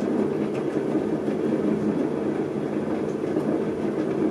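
Electric potter's wheel running steadily with a low, even hum as wet clay is pulled up into a cylinder on the spinning wheel head.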